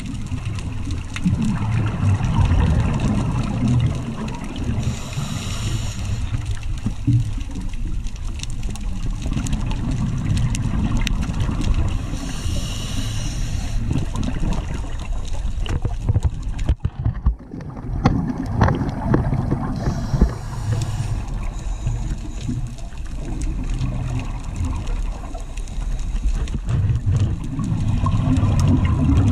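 Underwater sound of scuba diving: rumbling, gurgling bubbles from a regulator's exhaust, with a short hiss of the regulator about every seven to eight seconds as the diver breathes. The sound drops out briefly a little past halfway.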